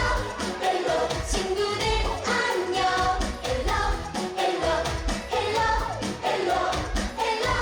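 Upbeat children's musical pop song, with sung vocals over a steady dance beat.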